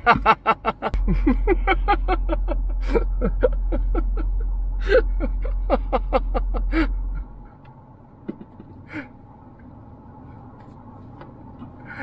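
Rapid snickering laughter, a quick run of pulses for about seven seconds that cuts off suddenly. A quiet steady car-interior background with a few faint clicks follows.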